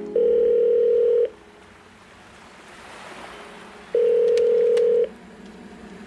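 Telephone ringback tone: two steady rings, each about a second long, the second starting about four seconds in, with a faint hiss between them.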